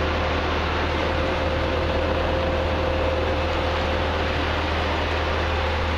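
Steady hiss with a constant low hum and a faint steady tone, unchanging throughout, with no distinct events.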